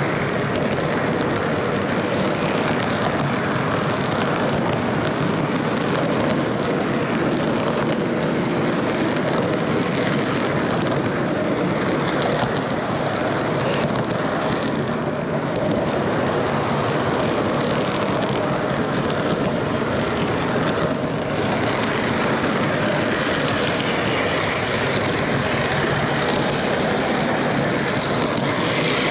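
HO scale model train running along its track, heard close up from a camera riding on one of its cars: a steady rattling rumble of metal wheels on rails, full of small fast clicks.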